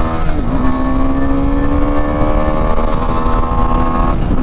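KTM 390 Adventure's single-cylinder engine pulling hard under acceleration, its pitch climbing steadily, with a quick drop in revs as it is shifted up a gear about half a second in and again near the end. Wind rumble on the microphone runs underneath.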